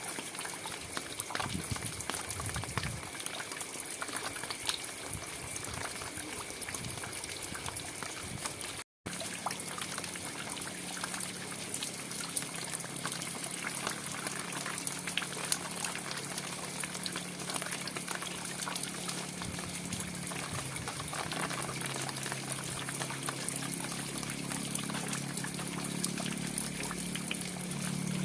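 Steady rain falling, a dense even hiss of drops with many fine ticks. The sound cuts out briefly about nine seconds in, and after that a low steady hum runs underneath the rain.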